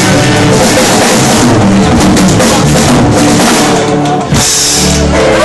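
Loud band music driven by a drum kit with a steady beat and guitar. It drops out for an instant about four seconds in.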